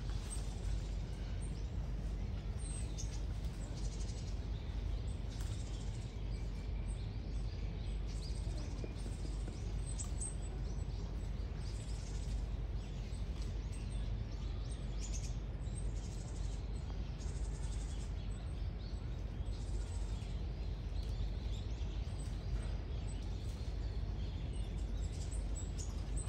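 Steady low rumble of ambient noise, with small birds chirping on and off throughout.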